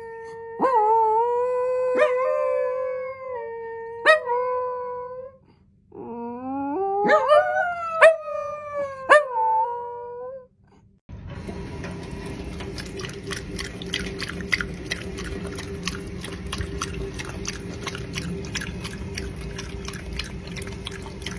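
A golden retriever and a dachshund howling in long, wavering held notes, in two stretches with a short break about five seconds in. About halfway through, the howling gives way to a steady hiss with fast irregular clicks.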